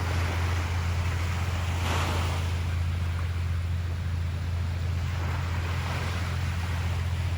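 Ocean surf washing onto a beach, with a wave breaking and swelling about two seconds in and another building near the end, over a steady low hum.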